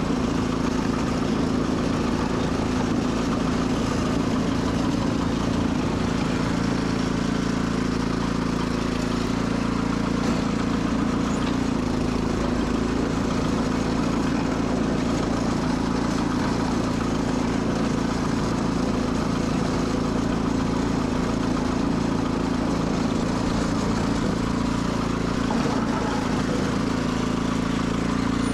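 Sears Suburban SS12 garden tractor engine running steadily, holding an even speed.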